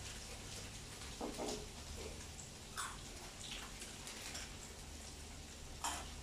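A few light clicks and small knocks of kitchen containers and utensils being handled, over a low steady hum.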